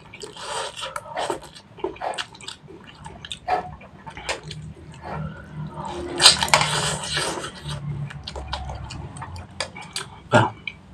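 A man slurping instant noodles up from a wok and chewing them with wet, clicking mouth sounds. There is a short slurp just after the start and a long, loud slurp about six seconds in. A short knock comes near the end.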